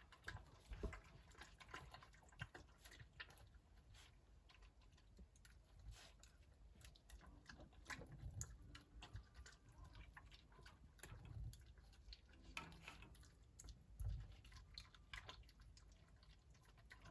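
Puppies eating dog food: faint, irregular chewing clicks, with a couple of louder knocks about a second in and near 14 seconds.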